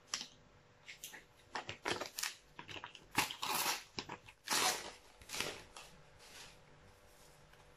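Panini sticker packet being torn open and crinkled in the hands, with the stickers inside shuffled: a string of short, irregular crinkles and rustles that die away near the end.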